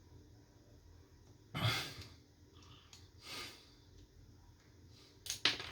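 A person sighs out audibly about a second and a half in, then lets out a softer breath about three seconds in. Near the end come a few light clicks.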